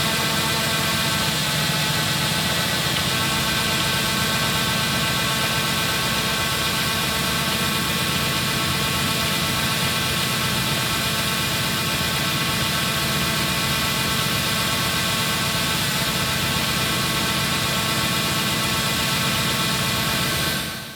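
John Deere S660 combine running steadily while harvesting corn: an even engine drone with a high whine of several steady tones over a broad hiss.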